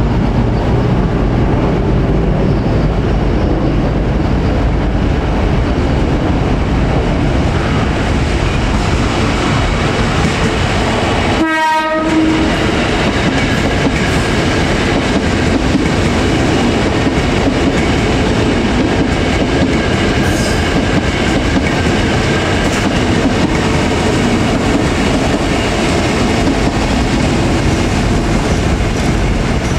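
Electric commuter multiple-unit trains running past close by on the track, a steady loud rumble of wheels on rail. About halfway through there is a brief break as the recording cuts to a second passing train.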